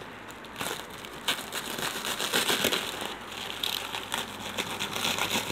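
Black plastic stretch-wrap on a parcel crinkling and crackling in irregular bursts as it is pulled and torn away by hand.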